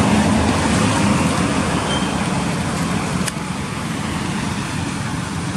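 A small motorcycle engine running as the bike rides past along a road and away, with road noise; the sound eases slightly after about three seconds.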